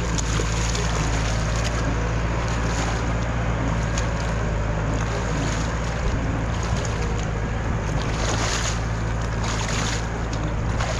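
A small engine hums steadily, with brief rushes of water splashing over it a few times.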